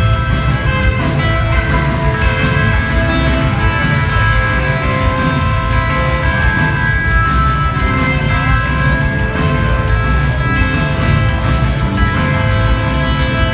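Live rock band playing: electric guitars, bass and drum kit with a steady beat, heard loud through the hall's PA.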